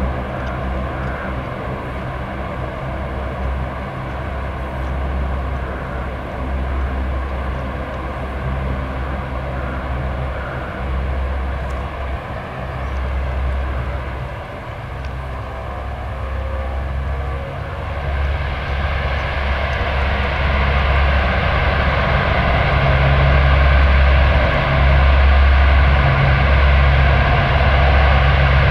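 Four Allison T56 turboprop engines of a C-130H Hercules running as it taxis: a steady propeller drone over a low rumble that swells and fades every second or two. About eighteen seconds in, the sound grows louder and brighter.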